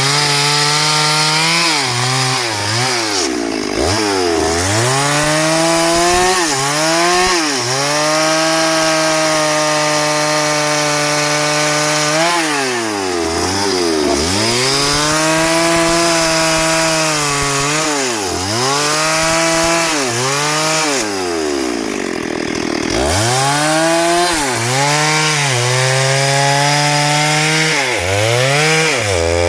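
STIHL MS382 two-stroke chainsaw cutting hardwood, its engine held at high revs through long stretches of cutting. Its pitch drops and climbs back again many times as the throttle is let off and squeezed. There is a longer dip to near idle a little past halfway.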